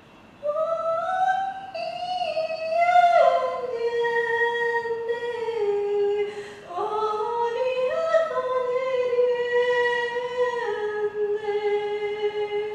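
A woman's high voice singing wordless, long held notes that slide from one pitch to the next. It comes in two phrases with a short break about six seconds in.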